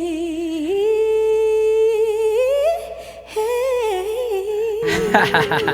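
Female singer holding a long, drawn-out note with wide vibrato on the final line of a ballad. The pitch steps up twice, with a short break about three seconds in. Near the end, keyboard chords come in under the held note.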